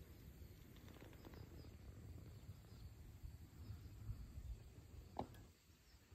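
Near silence at anchor: a faint low rumble with faint, short, high chirps scattered throughout, and one soft tap about five seconds in.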